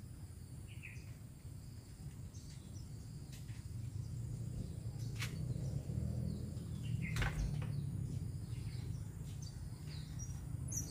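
Outdoor garden ambience: a steady low rumble under a faint, steady high insect drone, with a few short bird chirps and several sharp clicks scattered through.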